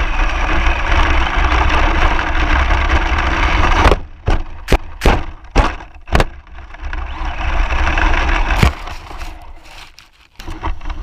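RC car driving fast over grass, with wind rushing on its onboard microphone, then a crash: about four seconds in comes a quick run of six hard knocks over two seconds as it flips and tumbles, and one more knock near nine seconds before it settles.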